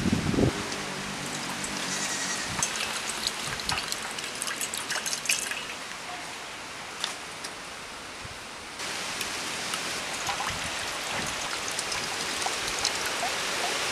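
Coconut water trickling and splashing out of a pierced coconut into a steel bowl, with light scraping clicks from a knife tip digging into the coconut's eyes.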